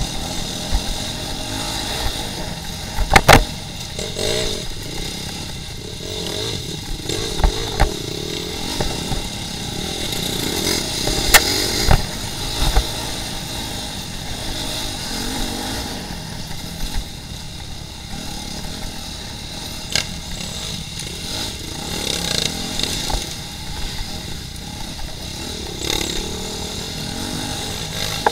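Dirt bike engine heard from onboard, revving up and down as the throttle is worked, with rattles and knocks from the bike over rough trail. One sharp, loud knock comes about three seconds in, another about twelve seconds in.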